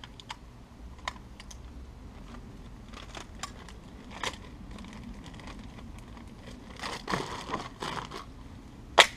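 Hands handling a plastic zip-top bag and small items: crinkling and scattered light clicks, busiest about seven seconds in, with a sharp knock near the end.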